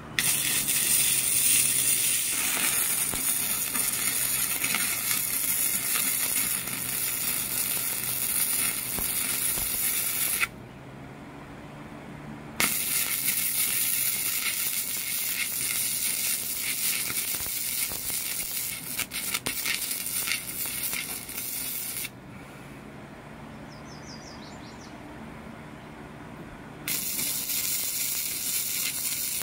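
Electric arc welding on square steel tubing: a loud, steady crackling hiss in three runs, the first stopping about ten seconds in, the second starting a couple of seconds later and stopping a little past twenty seconds, the third starting near the end. A steady low hum carries on underneath.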